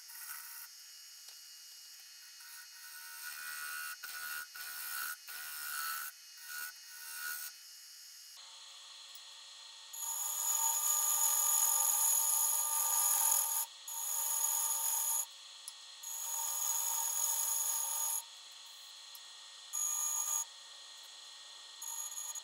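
A gouge cutting the outside of a spinning segmented walnut-and-maple vase on a wood lathe, in a series of passes: short, lighter cuts in the first half, then longer, louder cuts of a few seconds each from about ten seconds in, with brief pauses between them.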